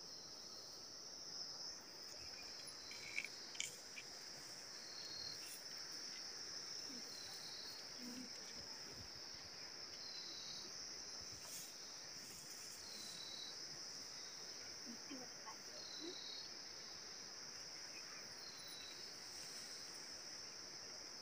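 Insects calling in a steady high-pitched chorus, with a short, slightly falling chirp repeating about every one and a half seconds and a few faint clicks.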